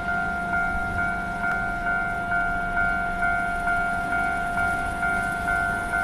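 Japanese railway level-crossing alarm ringing, its electronic two-tone bell repeating evenly at about two strokes a second: the crossing is closed for an approaching train.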